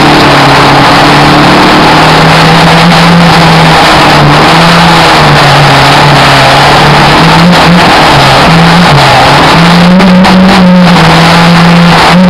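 Race car engine running hard and very loud, its pitch stepping up and down several times as the throttle and revs change.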